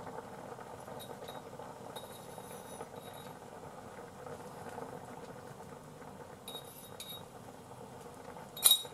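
A small pot of soup simmering steadily, with a few light clinks of a spoon against a glass jar of dashi granules and one sharper clink near the end.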